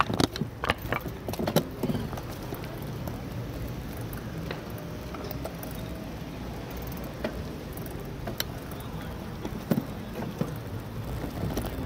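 Bicycle riding along a city street, heard from a handlebar-mounted camera: a steady low rumble of the ride, with a cluster of sharp knocks and rattles in the first couple of seconds and a few single clicks later on.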